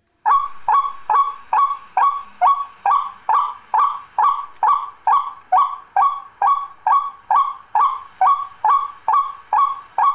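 Recorded bird call played from a cassette on a car cassette deck: one short call note repeated evenly, a little over twice a second.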